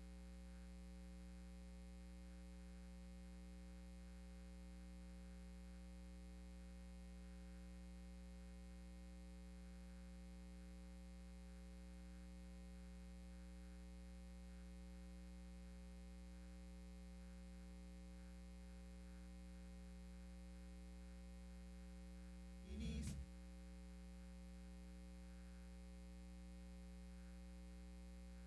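Near silence apart from a steady electrical mains hum, broken once by a short thump about three-quarters of the way through.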